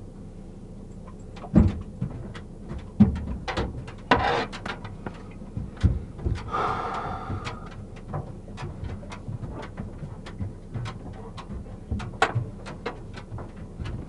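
Officers searching a car: irregular knocks, clicks and rustling, with a louder rustle about four seconds in and a short buzzy burst a little later, over a steady low hum.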